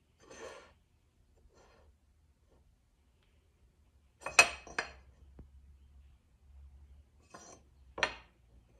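A few short clinks and knocks from a hand brace's steel auger bit and a small block being set against it on a wooden board. The loudest is a quick double clink about four and a half seconds in, with another sharp one near the end and softer taps around it.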